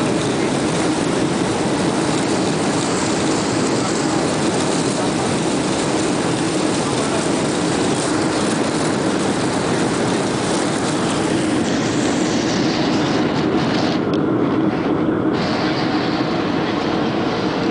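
Cabin noise of a Boeing 737-300 rolling out on the runway after landing: steady rumble and rush from its CFM56 engines and the wheels on the runway. The high hiss eases off about twelve seconds in as the jet slows.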